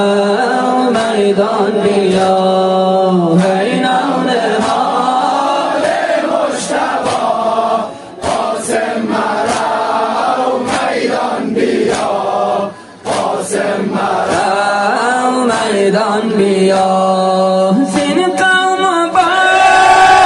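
Shia Muharram nauha (lament) soundtrack: long, held chanted vocals over a steady beat, between the sung verses. The sound drops out briefly twice, about 8 and 13 seconds in.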